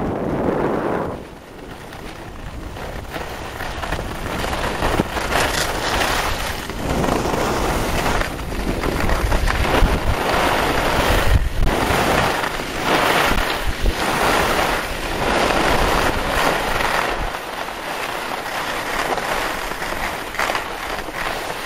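Wind buffeting the microphone of a camera carried by a skier, with skis scraping and hissing over packed snow in repeated surges about once a second as turns are linked.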